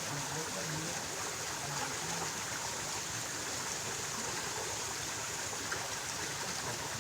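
Flowing stream water, a steady rush.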